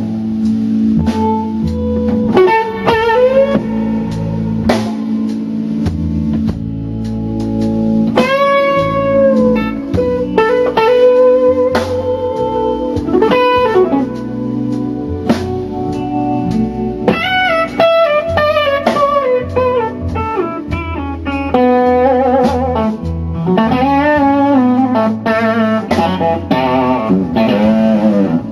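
Blues music: electric guitar playing bending lead lines over bass and drums.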